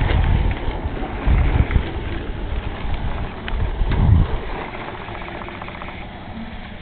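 Low, irregular rumbling and buffeting on a handheld camera's microphone as the camera is swung about, loudest about four seconds in.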